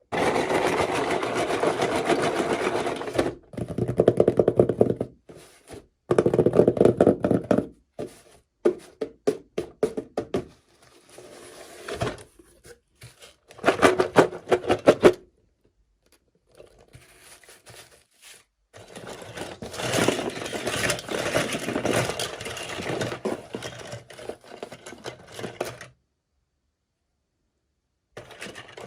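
Toy packaging being handled and opened: plastic and cardboard scraping, rustling and clicking in several separate bursts, some with a rubbing squeak, with sudden breaks of dead silence between them.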